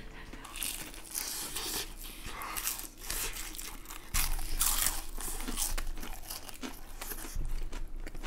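Crinkling and tearing in short, irregular bursts as a charcoal-grilled Pacific saury is pulled apart by hand and eaten.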